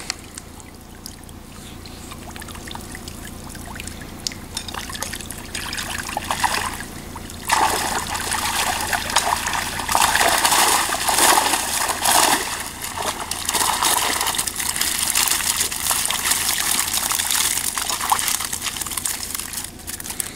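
Water splashing and pouring out of a mesh fishing keepnet as it is hauled up out of the lake. The pouring gets suddenly much louder about seven and a half seconds in and stops just before the end.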